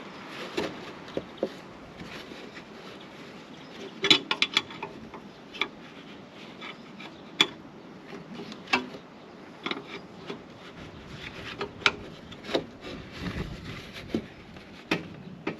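Hands and tools working at the rubber exhaust hanger rings under a car: scattered clicks, knocks and rubbing, with a quick run of four or five knocks about four seconds in.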